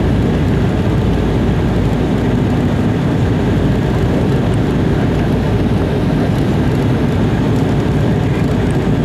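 Steady cabin noise of an Embraer E190 descending on approach, heard from a seat beside the wing: the GE CF34-10E turbofan and rushing airflow make an even, deep rumble with no changes.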